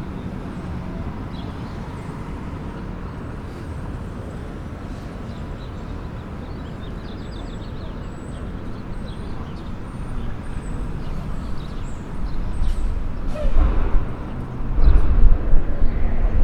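City street traffic: a steady low rumble of passing cars, growing much louder in the last few seconds as a heavy vehicle goes by close.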